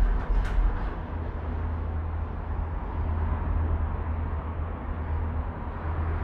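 Steady low rumble and hiss inside a Disney Skyliner gondola cabin as it travels along the cable.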